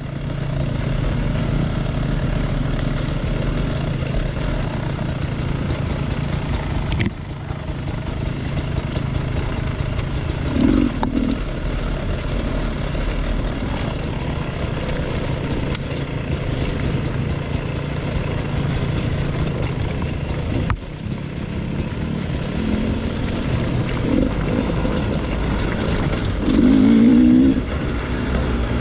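Off-road dirt bike engine running under way on a trail, with wind and road noise. The revs rise briefly about 11 seconds in and again near the end, and the sound drops away for a moment twice.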